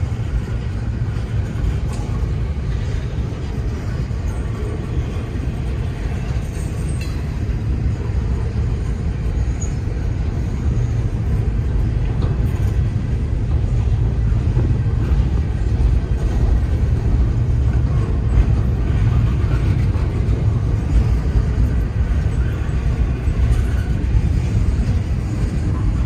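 Double-stack intermodal container cars rolling past: a steady low rumble of steel wheels on rail, growing a little louder about halfway through.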